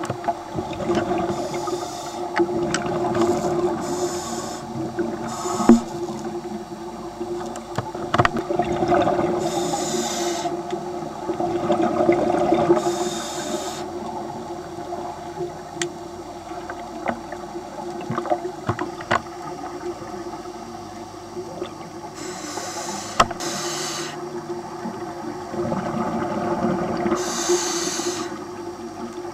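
Underwater sound on a scuba dive: the diver's regulator hissing in bursts of about a second, every few seconds, with each breath. Beneath it run a steady low hum and scattered sharp clicks.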